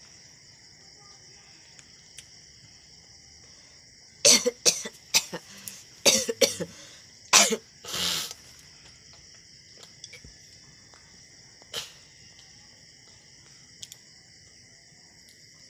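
A person coughing hard in a quick string of about seven coughs lasting some four seconds, the last cough drawn out.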